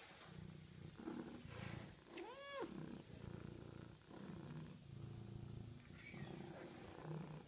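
Tortoiseshell cat purring in a slow rhythm of breaths, with one short rising-and-falling meow about two and a half seconds in.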